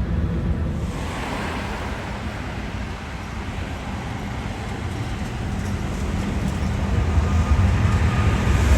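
Jet engines of a departing Boeing 777 freighter: a steady rumble with a rushing hiss that grows louder over the last few seconds.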